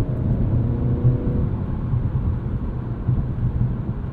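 Steady road and tyre rumble inside the cabin of a 2022 Mercedes-Benz C300 4MATIC cruising at road speed, with a faint engine drone from its 2.0-litre turbocharged four-cylinder during the first second or so.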